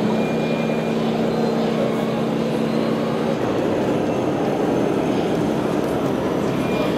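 Steady engine-like drone from radio-controlled scale trucks over the busy noise of an exhibition hall. A few held hum tones drop away about three and a half seconds in, leaving a dense even rumble.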